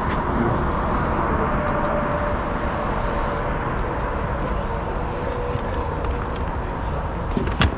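Steady outdoor background noise, a dense rumble and hiss, with a sharp knock near the end.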